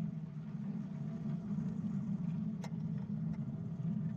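7¼-inch gauge miniature railway train running along the track: a steady rumble from the wheels and bogies, with a few sharp clicks, the clearest a little past halfway.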